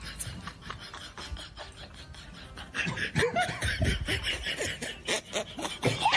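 A young woman giggling and snickering, quiet at first and louder from about three seconds in.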